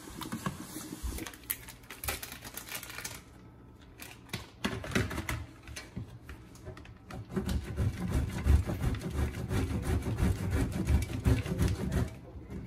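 A block of Parmesan rubbed on a metal box grater: rapid, steady scratchy strokes through the second half. Earlier there are a few scattered clicks of a spoon stirring thick meat sauce in a pot.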